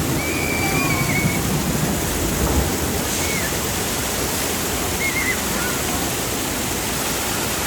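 Steady rush of falling and splashing water from a theme-park water boat ride, with a few faint high calls over it.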